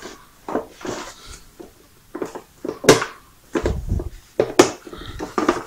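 Hard plastic toy-table legs being handled and swung open: a string of light plastic clicks and knocks, with a duller thump about four seconds in.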